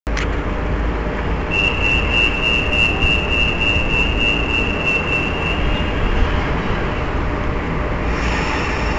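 Passenger train running on the rails, heard from inside a carriage: a steady low rumble, with a thin high whine from about a second and a half in until about six seconds in.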